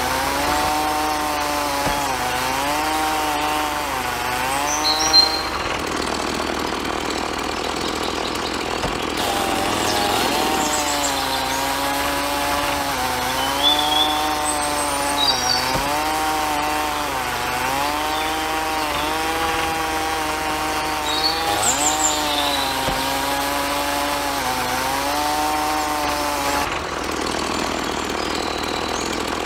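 Small electric gear motor whining as it spins a miniature post-hole auger into sand. Its pitch sags and recovers again and again as the auger loads. The whine drops out for a few seconds about five seconds in and again near the end.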